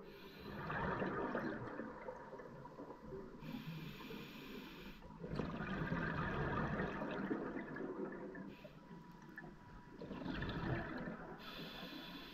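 A scuba diver breathing through a regulator underwater. A short hiss of inhalation through the demand valve is followed each time by a longer rush of exhaust bubbles, three breaths in all.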